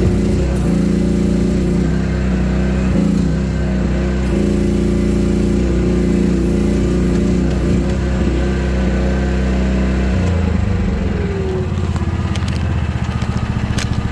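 Engine of a small mini excavator running loud and steady, heard from the seat right on top of the motor; about ten seconds in its pitch drops and it settles into a steady, pulsing idle, with a few sharp clicks near the end.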